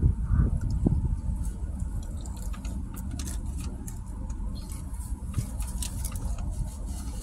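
Steady low rumble inside a car cabin, with scattered small crackles and clicks from chewing and handling a taco's paper wrapper.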